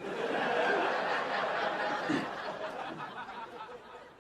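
Sitcom studio audience laughing after a punchline. The laughter breaks out at once and fades away over about four seconds.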